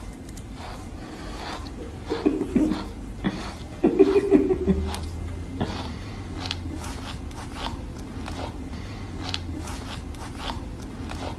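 Young husky-type dog grumbling and 'talking' in short low bursts about two and four seconds in, with snuffling and small clicks of its mouth on a hand as it play-bites.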